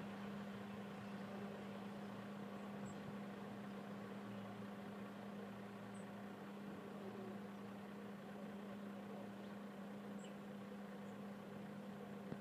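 Engine of a stationary fire engine idling, a faint, steady hum that holds one pitch throughout.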